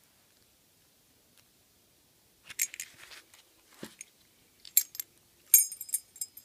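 Metal keys jangling and clinking as the padlock and its keys are handled: quiet at first, then a run of sharp clinks starting about two and a half seconds in.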